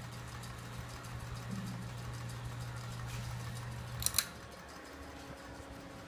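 Encon ceiling fan motor humming steadily as the blades turn. About four seconds in a sharp double click is heard, after which the hum drops and a different, higher steady tone takes over.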